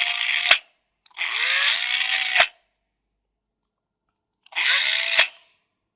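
Makita 7.2V cordless drill run in three short bursts at high speed: each time the motor whirs up in pitch and then stops abruptly with a click as the trigger is released and the brake catches. The first run ends about half a second in, the second lasts just over a second, and the third, near the end, is shorter.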